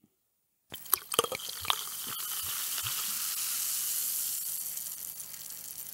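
Prosecco being poured into a glass. A few small clinks about a second in, then a fizzing, splashing hiss that builds for a couple of seconds and then slowly fades.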